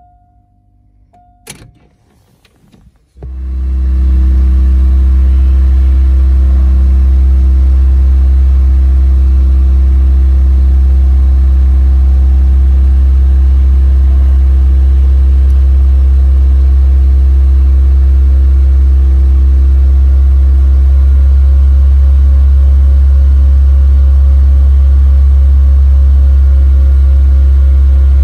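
Supercharged 2.0 L LSJ four-cylinder in a Chevy Cobalt SS on its first start after sitting two years. There is a click and a moment of cranking, then it catches about three seconds in and runs steadily and loudly.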